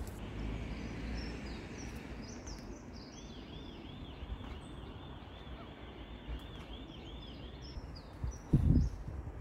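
Outdoor city ambience: a steady low rumble, with small birds chirping and one bird repeating a short note about two or three times a second for several seconds. Near the end come a couple of loud low thumps on the microphone.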